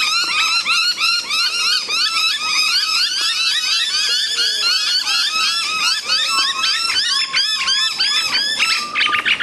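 A group of noisy miners calling all at once, a dense chorus of many overlapping calls, breaking into a quick run of short calls near the end. This is their rowdy group behaviour, which the recordist takes for a territorial thing.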